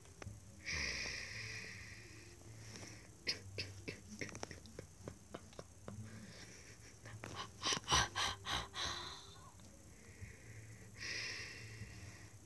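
A person's wheezy breathing close to the microphone, with small clicks and soft handling noises as plush puppets are moved about, and a short run of louder breaths or bumps about two-thirds of the way through.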